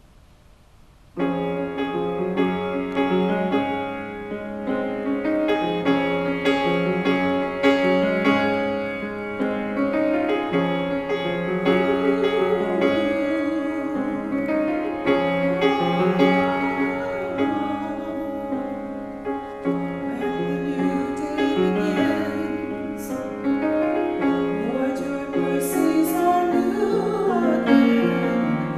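Grand piano playing a song accompaniment, starting suddenly about a second in and continuing steadily.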